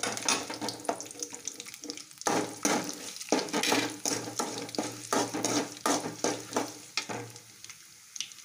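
Sesame oil sizzling in an aluminium kadai as chana dal, curry leaves and dried red chillies fry for a South Indian tempering, with a metal ladle stirring and repeatedly scraping and clicking against the pan. The sizzle and scraping fade somewhat near the end.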